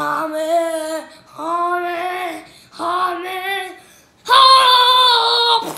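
A boy's voice giving four long, drawn-out chanting shouts with short breaths between them. The last shout is the loudest and highest-pitched.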